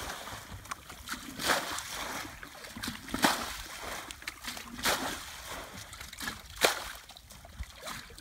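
Muddy water splashing as a shallow rice-field ditch is bailed out by hand with buckets, a splash about every second and a half to two seconds, four in all.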